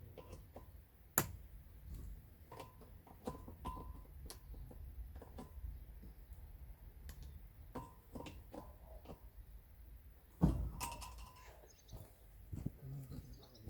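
Scattered knocks and clinks of metal being handled, with a sharp clank about a second in and a louder one near the end; a few of them ring briefly.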